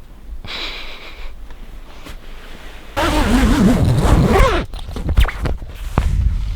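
A zipper pulled in two strokes: a short, soft pull about half a second in, then a louder, longer pull with a wavering pitch around the middle, followed by a few light knocks.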